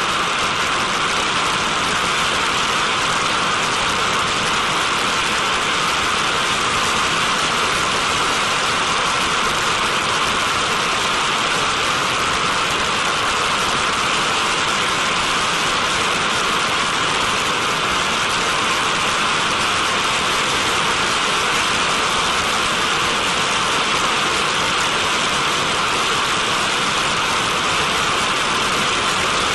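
Turbojet engine of a TMS-65 decontamination truck running flat out, blasting a water spray into a vapour cloud: a steady, even rushing hiss that never changes.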